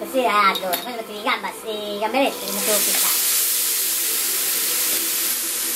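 A man talking briefly, then from about halfway in a steady, loud sizzle of hot oil in a frying pan as cooked beans go into it.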